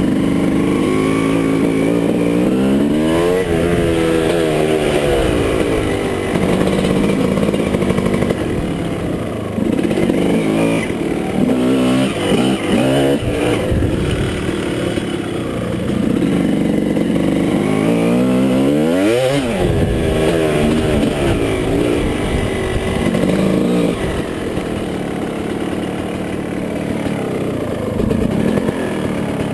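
Motorcycle engines, among them a Suzuki JR50 minibike's small two-stroke, revving up and easing off again and again as they ride, the pitch rising and falling.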